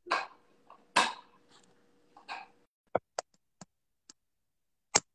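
A few soft breaths or throat sounds, then about six sharp clicks and knocks over the last two seconds, the loudest near the end: a smartphone being handled.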